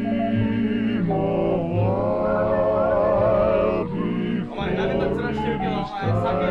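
Background music: held chords with a wavering, vibrato-like melody line that changes every second or so.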